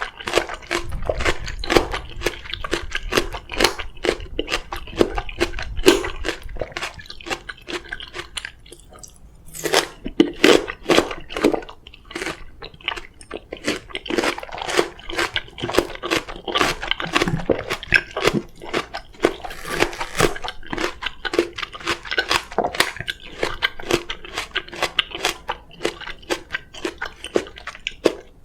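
Close-miked biting and chewing of raw Korean oriental melon (chamoe), with many crisp, wet crunches coming quickly and unevenly.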